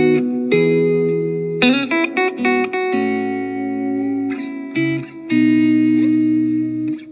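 Electric guitar played through a Positive Grid Spark Go mini amp: ringing chords that change every second or so, with a quick run of picked notes about two seconds in.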